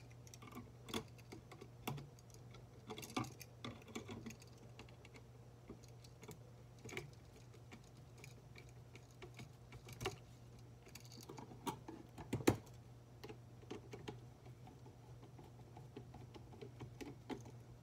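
Screwdriver tightening the brass terminal screws of a wall switch onto looped hot wires: scattered small metal clicks and ticks, with a couple of sharper clicks near the middle.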